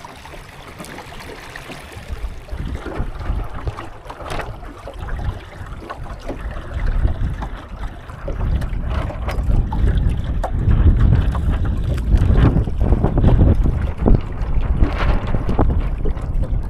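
Wind buffeting the microphone on a small sailing dinghy under way, with water slapping and splashing against the hull. The wind rumble grows louder about halfway through.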